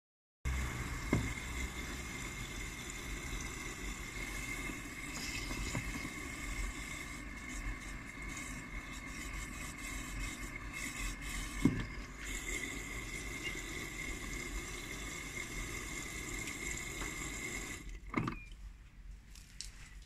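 Hotpoint front-loading washing machine running without its pressure switch, a steady hum and hiss with a thin whine. A few single knocks come about a second in, midway, and near the end, where the steady running sound cuts off.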